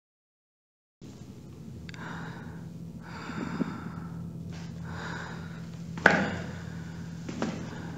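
A second of silence, then a low steady hum with a few soft, breathy swells, and a sharp knock about six seconds in followed by a lighter one about a second later.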